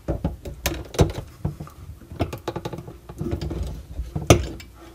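Tongue-and-groove pliers clicking and scraping against the nut of a water supply line at its shutoff valve as they are set and gripped: a string of irregular light clicks, with sharper knocks about a second in and near the end.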